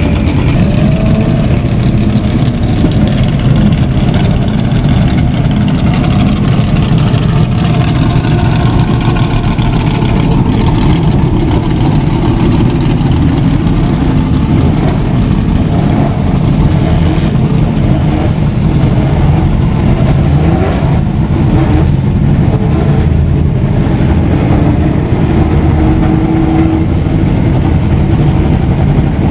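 Historic 1970s–80s racing car engines running loudly without a break, idling with revs rising and falling.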